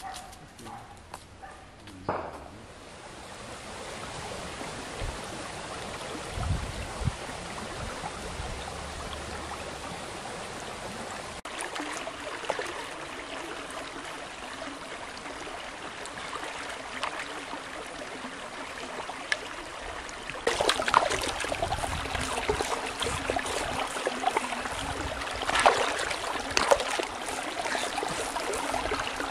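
Shallow stream running over stones. From about two-thirds of the way through, hands splash in the water as a trout is held and cleaned in the current.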